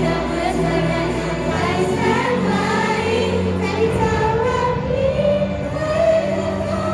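A Thai pop song: a singing voice carrying a melody over instrumental accompaniment, with a bass line that changes chord every couple of seconds.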